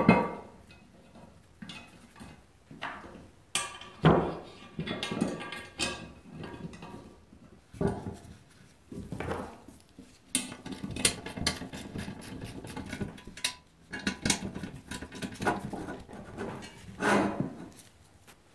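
An aluminium engine crankcase half being handled on a steel engine-stand plate and bolted to it by hand: irregular metal knocks, clinks and short scrapes, with louder thumps as the case is set down at the start, about four seconds in and near the end.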